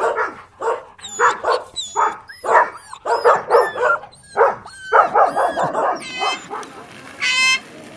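Dog barking in quick, short barks, with thin high chirps over them. From about six seconds a different, clear-pitched call repeats about once a second.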